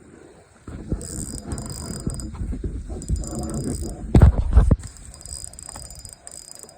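Ice-fishing reel cranking and clicking as a hooked perch is reeled in. There is a run of rapid ratchet-like clicks, with two loud knocks about four seconds in, after which it quietens.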